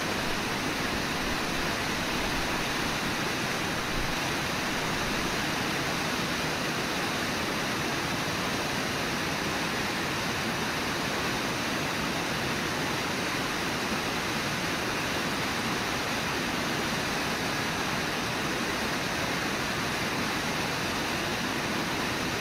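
Steady, unbroken rush of the Brooks River's flowing water and falls.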